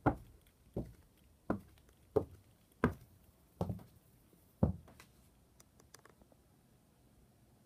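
Footsteps on a bare wooden subfloor: about seven steps at a walking pace, stopping about five seconds in.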